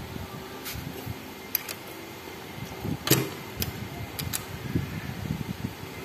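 Metal hand tools clicking and clinking on a motorcycle engine during a tappet clearance adjustment: a handful of short, sharp ticks, the loudest about three seconds in, over a steady low background hum.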